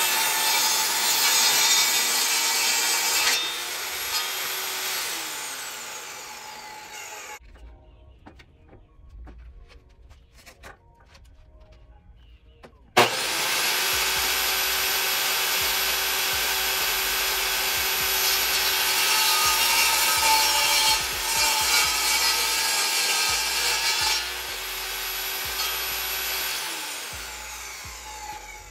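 Portable table saw ripping a wooden panel: a high motor whine with the rasp of the blade cutting, in two long cuts. The first fades away after a few seconds as the saw spins down; the second starts abruptly about halfway through and winds down near the end.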